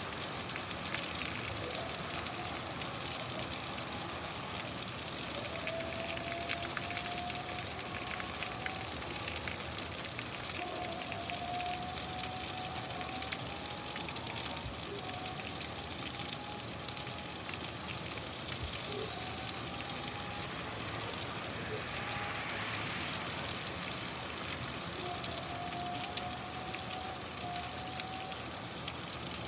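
Steady rainfall, an even hiss of drops. Faint short rising tones recur every few seconds over it.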